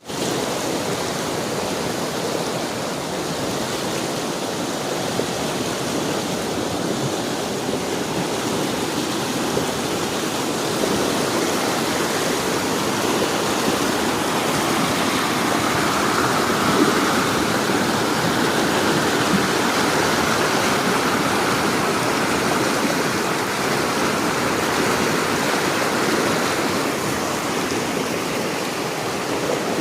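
Stanislaus River water flowing and rushing over rocks: a steady, even rush with no let-up.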